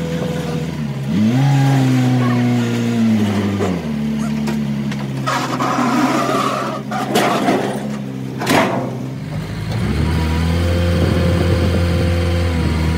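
A truck's diesel engine running, revved up about a second in and again near ten seconds, its pitch easing back down after each rise. A few short rushing noises come in the middle.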